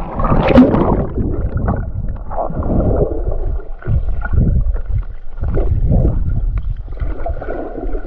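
A splash about half a second in as the swimmer goes under the sea surface, then muffled underwater sound: water rushing and gurgling around the submerged camera in uneven swells, with the high sounds cut off.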